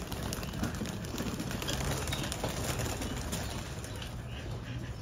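Domestic pigeons cooing, with wingbeats as they flutter out of the loft.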